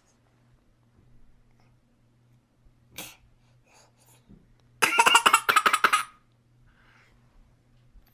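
A child's burst of rapid, breathy pulses, about seven in a second or so, a little past the middle, with a shorter breathy sound a couple of seconds before it. This is the odd laugh-like breathing seen during a suspected seizure-like episode.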